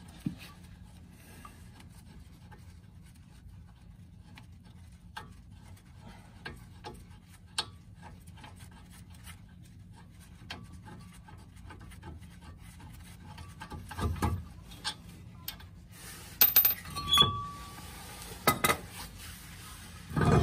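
Metal hand tools and loose bolts clinking and knocking as they are handled and set down during work on a car's front hub. The clinks are sparse at first and come thicker and louder from about two-thirds of the way in, with several sharp clanks near the end.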